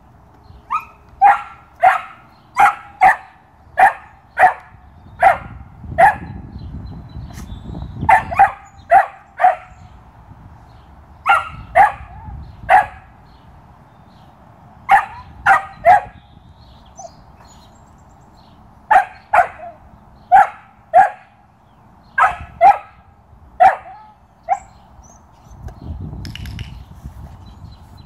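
Young Belgian Malinois puppy barking: short, sharp, high barks in repeated bursts, a quick run of about a dozen in the first ten seconds and then groups of two to five.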